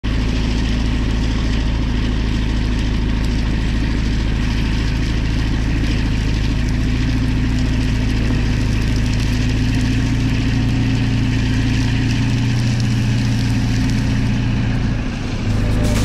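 Caterpillar D11 bulldozer's big diesel engine running steadily under load as it pushes a blade-load of soil over a bank. Its note dips near the end.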